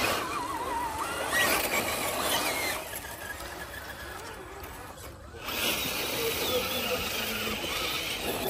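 Whine of a 1/10-scale RC rock crawler's electric motor and gears, its pitch wavering as the throttle is worked on a steep climb.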